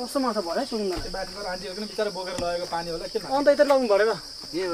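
A steady, high-pitched insect chorus shrilling without a break, with men's voices talking over it.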